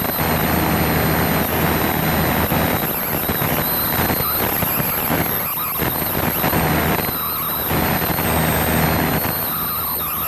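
Cessna 172's piston engine and propeller droning steadily, with rushing airflow noise over it.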